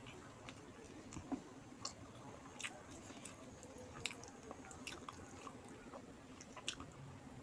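A person chewing a mouthful of rice and fish curry, with soft, irregular mouth clicks and smacks.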